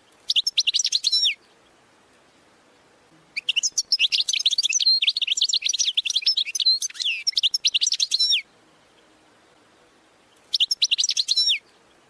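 European goldfinch singing in three bouts of rapid, high chirps and trills: a short burst at the start, a long run of about five seconds in the middle, and another short burst near the end.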